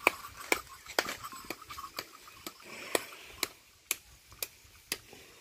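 Sharp knocks on jackfruit in the tree, about two a second and very regular.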